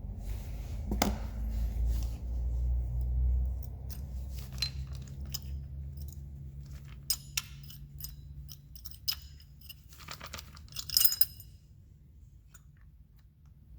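Small metal parts or tools clinking and rattling against each other in scattered knocks, with a louder flurry of clinks near the end.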